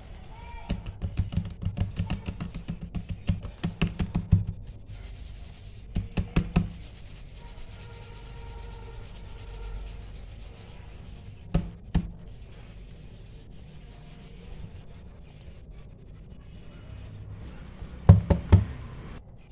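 Hands rubbing and pressing paper notes flat onto a notebook page: a quick run of rubbing strokes in the first few seconds, a few short bursts later, and a louder flurry of paper and notebook handling near the end as the page is turned.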